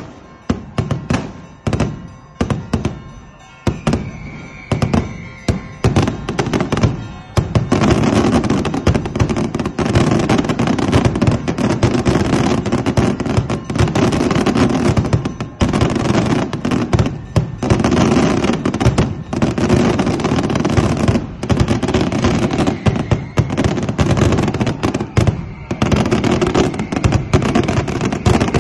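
Daytime aerial fireworks going off overhead. For about seven seconds there is a quick series of separate sharp bangs, then a dense continuous barrage of bangs and crackles, with music underneath.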